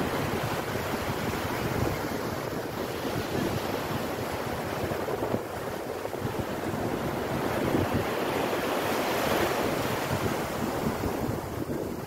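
Low surf breaking and washing up a sandy beach, with wind rumbling on the microphone; the wash swells a little past the middle and eases off near the end.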